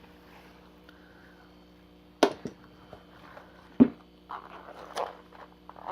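Tools being handled: a few sharp clicks and knocks, two just past two seconds in and a louder one near four seconds, then about a second of soft rustling with another click.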